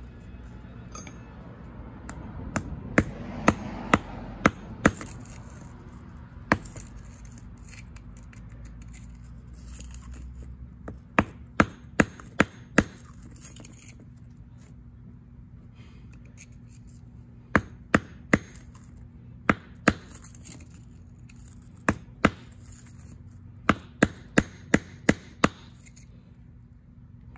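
Hammer striking the handle of a screwdriver set as a chisel in a geode's crevice, trying to split the stone. Sharp knocks come in quick runs of three to six, with pauses of a few seconds between the runs.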